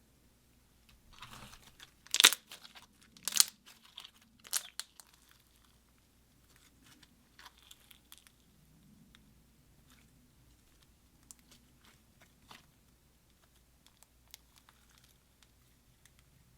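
Slime being worked by hand with makeup mixed in, making sticky crackles and snaps: three loud sharp pops in the first five seconds, then softer, scattered crackling.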